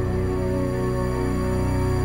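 Background music of long, low held chords that shift slowly.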